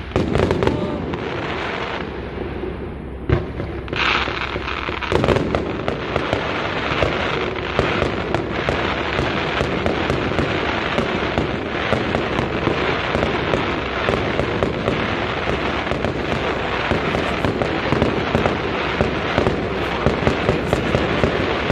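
Fireworks display: a few heavy bangs from bursting shells in the first five seconds, then a dense, continuous run of rapid crackling and popping from low crackling fireworks.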